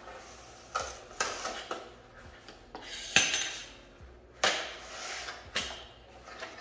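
A long cardboard box being opened and handled on a tabletop: a series of sharp scrapes and knocks, the loudest about three seconds in.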